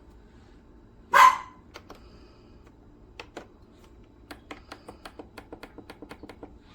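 One short, loud bark-like sound about a second in, then a series of light clicks that quickens to about six a second near the end.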